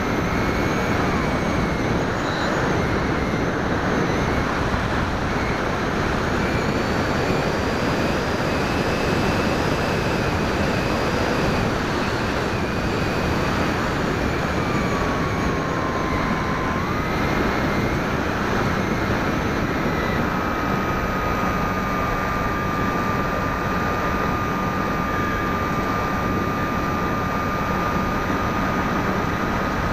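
An FPV model aircraft's motor and propeller whining steadily, heard through its onboard camera's microphone under heavy wind rush. About halfway through, the whine drops in pitch for a couple of seconds and then jumps back up as the throttle is eased off and opened again.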